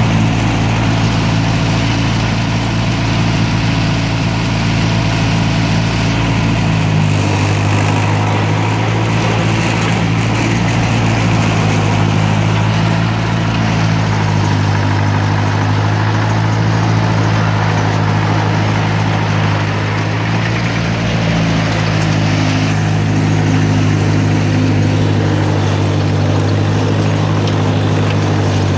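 1958 Cockshutt 540's four-cylinder flathead engine running at a steady pitch, heard up close from the driver's seat near its exhaust stack.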